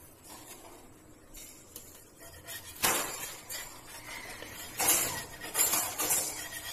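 Metal spatula clinking and scraping against a flat tawa while the egg-and-chapati omelette is cut and turned: quiet at first, then a handful of sharp clinks from about three seconds in.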